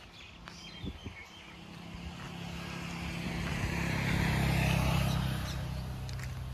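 A motor vehicle passing on the road. Its engine hum and tyre noise swell to a peak about four to five seconds in, then drop slightly in pitch and fade.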